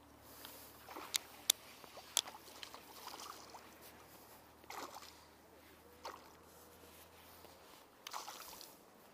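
Hooked fish splashing and sloshing at the water's surface while it is played on a light spinning rod. A few sharp clicks come in the first two seconds, and there are softer splashes further on.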